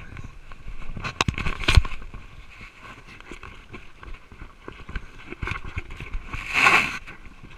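Lake water splashing and slapping against a handheld action camera held at the surface by a swimmer. There are sharp knocks and splashes about a second and a half in and again around five seconds, and a louder burst of noise near the end.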